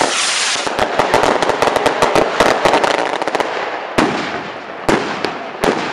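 Fireworks going off: a dense, rapid crackle of firecrackers for about the first three seconds, then three separate sharp bangs in the last two seconds.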